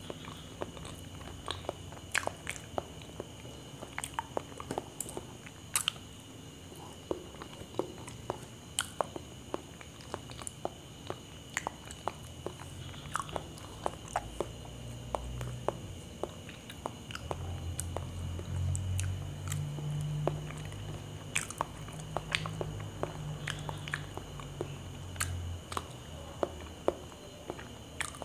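Close-miked chewing of soft, ripe small bananas, with many short wet mouth clicks and smacks. A low hum swells for several seconds past the middle.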